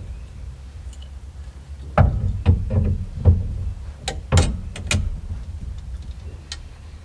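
A run of knocks and clicks as a steering wheel is worked onto the steering column shaft, most of them between two and five seconds in, with one more click near the end.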